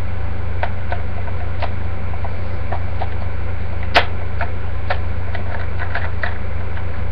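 Scattered small plastic clicks and taps from a toy morpher and its belt-loop holster being handled and fitted together, with one sharper click about four seconds in, over a steady low electrical hum.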